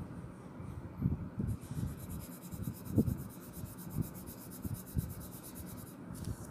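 Coloured pencil scratching back and forth on paper as a small patch is shaded in, with a few louder strokes about once a second.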